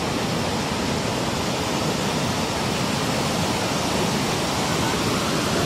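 Steady rushing noise of tsunami seawater and surf, even throughout with no separate crashes or other events.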